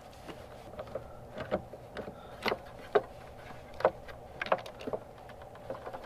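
Irregular light clicks and taps from a T-handle hex key and a small steel bolt, about one every half second to a second, as the last 5 mm hex bolt holding a convertible-top latch motor is backed out and lifted free.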